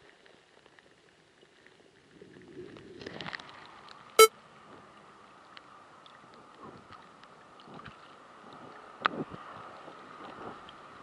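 Underwater camera being hauled up out of the water on a line: muffled water noise that swells as it breaks the surface, one sharp ringing clink about four seconds in, then a few light knocks as it swings and spins.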